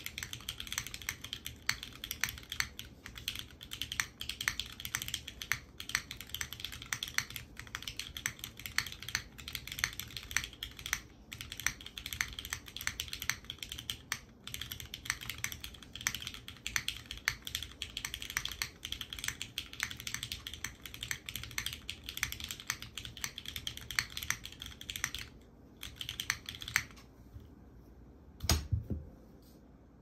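Fast continuous typing on a SINGAKBD Kohaku R2 custom mechanical keyboard: lubed and filmed Cherry MX Black linear switches on an aluminium leaf-spring plate with a soldered PCB, GMK keycaps and no foam. The clacks thin out to a few single presses near the end, with one deeper, louder thump just before the close.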